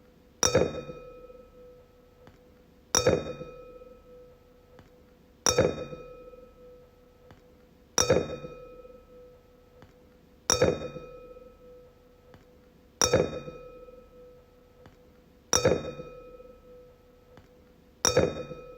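A wine glass struck and left ringing, eight evenly spaced strikes about every two and a half seconds. Each strike rings one clear note with fainter higher overtones that dies away over about two seconds.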